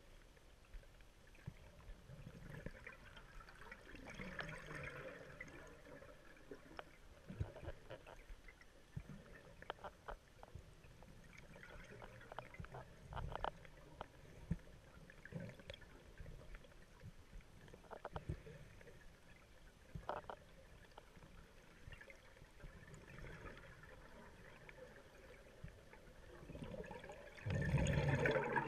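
Underwater scuba sound heard through a camera housing: a diver's exhaled bubbles rising in bursts every several seconds, with scattered light clicks and knocks from gear. A louder, fuller burst of bubbles comes near the end.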